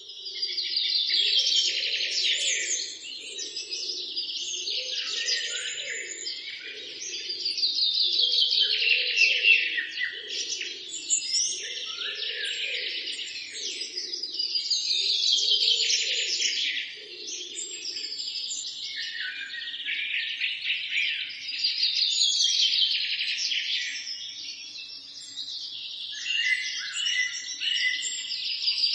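Birds chirping and singing in a dense chorus, swelling in bursts about every seven seconds. A lower, pulsing call sits under it through roughly the first half and then fades out.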